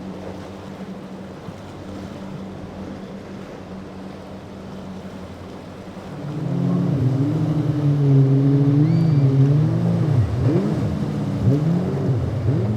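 Motorboat engines running, with a steady hum at first, then a much louder boat engine coming in about six seconds in. Its pitch wavers up and down and dips and climbs repeatedly as the throttle changes.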